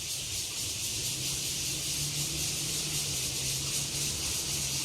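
Steady high hiss of background noise, with a faint low steady hum underneath that comes in about a second in.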